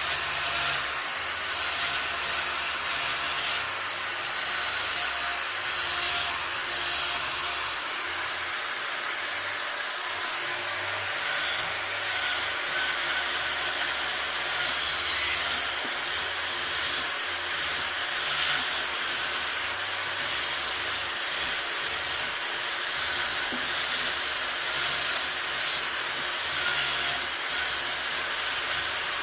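Power carving tool grinding into the dry trunk wood of a loa bonsai: a steady, high, hissing cut that runs without a break.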